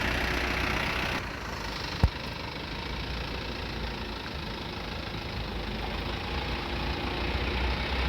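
Steady rushing roar of a large waterfall, with a deep low rumble underneath. A single sharp knock comes about two seconds in.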